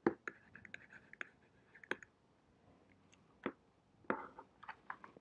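Several faint, irregularly spaced clicks and taps from hand-writing on a computer with a digital pen tool.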